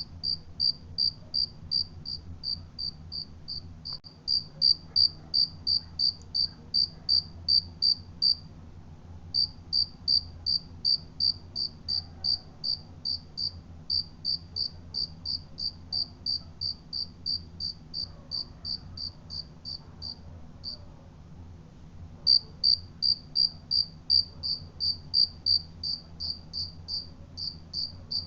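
A cricket chirping in an even series of about three short, high chirps a second, stopping briefly twice, over a faint low hum.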